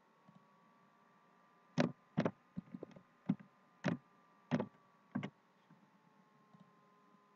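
Computer keyboard and mouse: a run of about ten sharp key taps and clicks, starting about two seconds in and stopping about five seconds in, over a faint steady hum.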